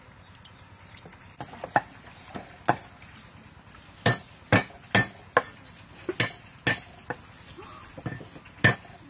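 Knives chopping vegetables on thick round wooden chopping blocks: sharp, uneven chops, beginning about a second and a half in and coming about two a second later on.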